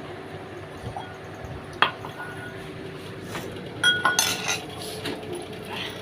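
Dishes and cutlery clinking: a sharp clink about two seconds in, another a little later, then a cluster of ringing clinks around four seconds in.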